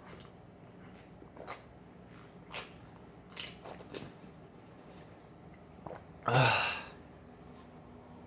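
Quiet room with a few faint clicks, and about six seconds in one short, loud breathy burst from a person.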